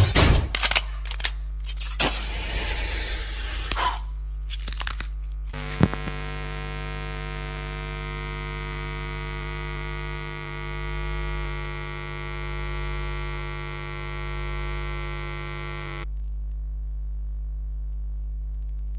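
Dance music over stage speakers: a few sharp hits and a noisy rush in the first seconds, then one long held chord for about ten seconds that cuts off suddenly. A low electrical hum from the sound system remains under it and after it.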